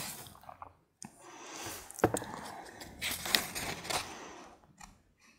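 Pages of an old book with yellowed paper being turned and handled, a soft paper rustling with two sharper page snaps partway through.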